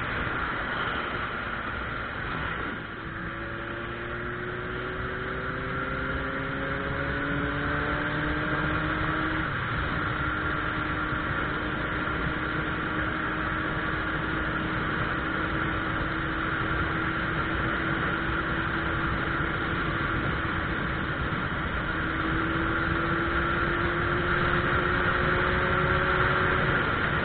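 Suzuki Bandit 1200's inline-four engine pulling a riding motorcycle through its gears. The pitch drops at a gear change about three seconds in, rises to another shift near ten seconds, holds nearly steady, then climbs again near the end, over a steady rushing noise.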